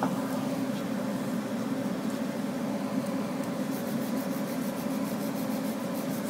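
A steady low machine hum with an even hiss over it.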